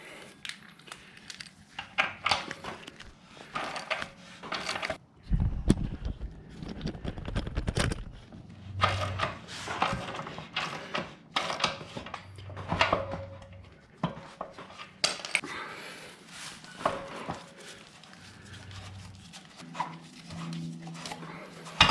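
Irregular metal clinks, scrapes and knocks from working the rear axle and wheel of a motorcycle free by hand, with a low rumble about five seconds in.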